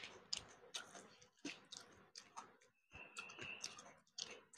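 Faint, irregular wet clicks and squishes of fingers mixing white rice with fish curry on a plate.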